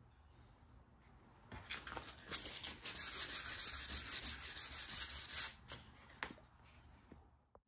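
Sandpaper scrubbed rapidly back and forth along the steel blade of an old drawknife, a dense rasping hiss that starts about a second and a half in and stops about four seconds later.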